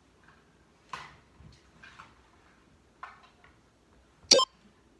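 A workout interval timer beeps once, loud and short, near the end, marking the end of a 30-second exercise interval; before it there are only a few faint soft sounds about once a second.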